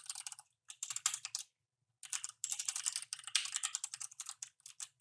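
Typing on a computer keyboard in quick flurries of keystrokes, with a short pause about a second and a half in, then a longer, faster run of typing.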